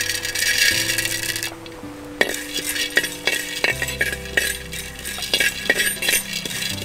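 Roasted gram (split chickpeas) tipped into a hot, dry clay pot with a brief rushing rattle, then stirred: grains rattling and a ladle clicking and scraping against the clay in irregular strokes. Dry-roasting so the gram grinds to a fine powder.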